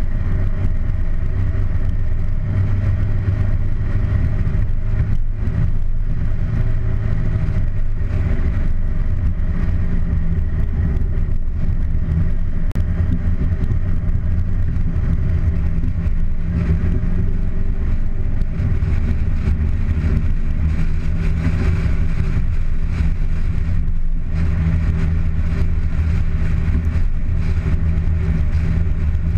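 Car engine running steadily, with road and air noise, picked up by a camera mounted outside on the bonnet; the sound dips briefly about three-quarters of the way through.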